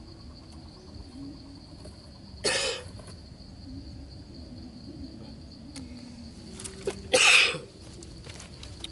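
A steady high-pitched insect trill, with two short, loud rustling noises, about two and a half seconds in and about seven seconds in, from a snare's cord and stake being handled.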